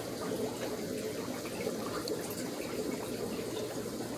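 Steady sound of running, splashing water from aquarium filtration.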